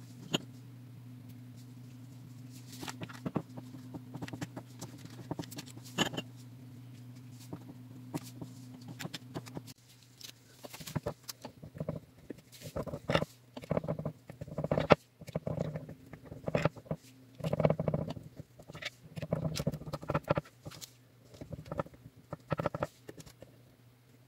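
A steady low hum with a few light taps, then from about ten seconds in, repeated bursts of parchment paper crinkling and rustling as gloved hands handle it around a glass baking dish.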